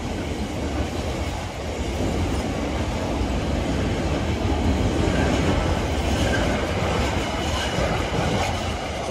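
Container wagons of an intermodal freight train rolling past as it gathers speed: a steady rumble of steel wheels on the rails.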